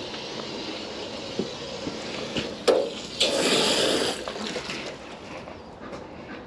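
Water sprays from a garden hose's pistol-grip nozzle into a bucket for about a second, with a hiss, just after a sharp click.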